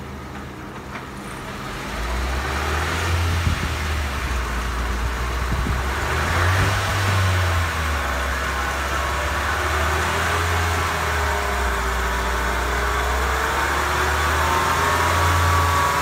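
Car running in gear with its jacked-up right front wheel spinning freely, getting louder about two seconds in as it speeds up. The front wheel hub bearing hums over the engine, a droning tone that climbs gently in pitch as the wheel speeds up: the sign of a damaged bearing.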